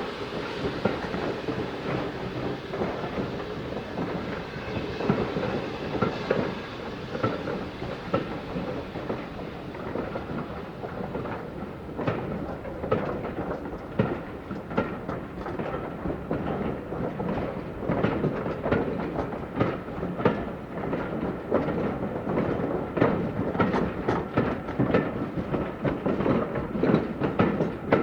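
Steam-hauled train running past, a steady rush with wheels clattering over the rail joints; the clatter gets busier from about halfway through.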